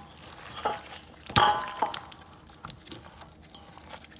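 Oxtail pieces being mixed by hand in buttermilk in a bowl: wet sloshing and scattered clicks, with one louder clink about a second and a half in.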